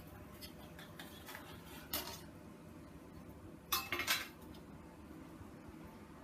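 Metal spoon clinking against a pot a few times as grated ginger goes into the boiling tea, once about two seconds in and then a quick run of louder clinks around four seconds in.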